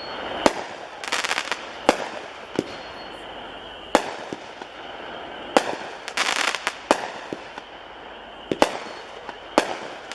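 A 200-gram consumer aerial repeater cake (Bone Crusher, 9 shot, by Pirate Junkie) firing its shots. Sharp reports come every second or two, with bursts of crackle about a second in and again around six seconds in.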